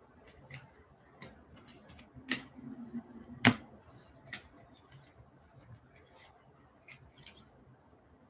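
Baseball cards and a clear plastic card sleeve being handled: scattered light clicks and plastic rustles, the loudest a sharp click about three and a half seconds in.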